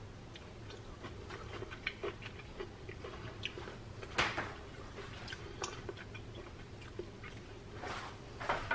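Faint scattered small clicks and ticks over low room noise, with one sharper click about four seconds in.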